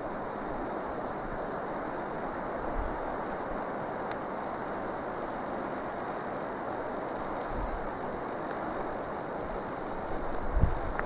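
Steady rushing of wind through a pine forest, with a few short low thumps about three, seven and ten seconds in.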